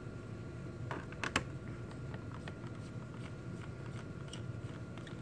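Light clicks and ticks of a small Phillips #1 screwdriver and loose screws working on a laptop's plastic bottom case, with a sharper clack about a second and a half in.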